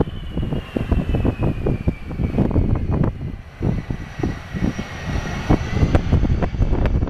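Jet airliner on landing approach, its engines giving a high whine that drifts slowly in pitch, under heavy gusty wind buffeting on the microphone.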